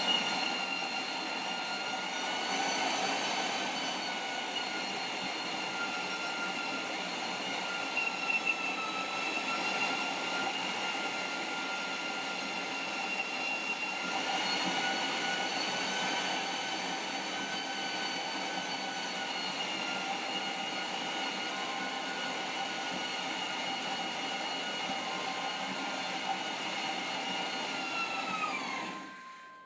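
Electric-motor-driven grain mill running steadily with a high whine, milling malted barley from its hopper. The pitch dips and recovers slightly along the way. Near the end the whine falls as the motor winds down and stops.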